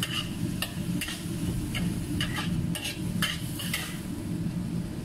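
Metal spatula stirring and tossing beef and bell peppers in a hot wok, scraping and clinking against the pan about twice a second over a steady sizzle of frying.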